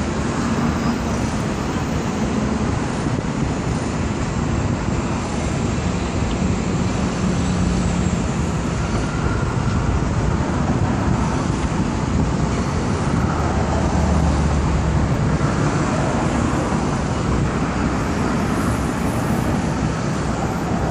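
Steady roar of road traffic, with a low engine hum rising out of it now and then.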